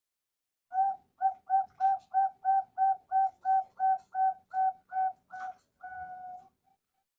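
Male zebra dove (perkutut) cooing. It gives a quick run of about fourteen clipped notes on one pitch, about three a second, starting about a second in, then ends with a longer drawn-out note.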